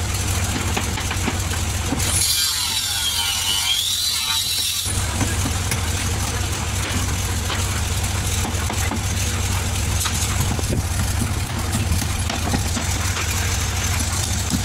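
Steady low engine-like rumble of machinery on a building site, with scattered knocks that fit hammer blows on wooden slab shuttering. From about two seconds in, the rumble drops out for some three seconds while a high tone wavers down and back up.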